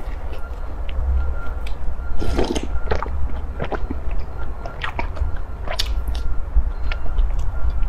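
Close-miked biting and chewing of a baked bun: sharp, crackly mouth clicks, with a louder bite a little over two seconds in, over a steady low hum.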